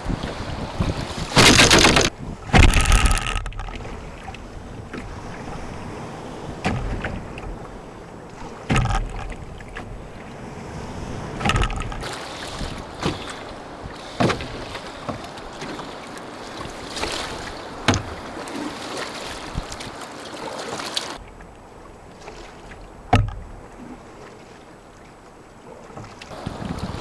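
Water slapping and splashing against an open canoe's hull and paddle strokes in rough lake water, over steady wind and wave noise. There are two heavy splashes about two and three seconds in, then lighter slaps and strokes every second or two.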